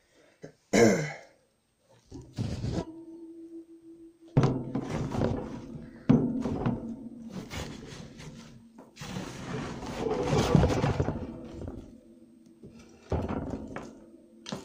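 Loose wood-shaving bedding being spread by hand over the floor of a plastic guinea pig cage: rustling and scraping, with a sharp thunk about a second in.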